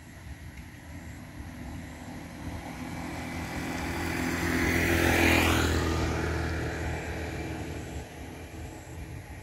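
A motor vehicle passing by: engine noise builds gradually, is loudest about halfway through, then fades away.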